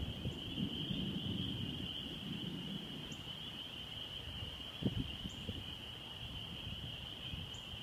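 A steady high-pitched chorus of small calling animals over a low, uneven rumble of wind buffeting the microphone, with a brief thump about five seconds in.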